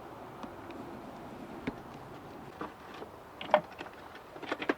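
Scattered clicks and knocks of parts being handled in a car's engine bay, with one loud, ringing metallic clink about three and a half seconds in.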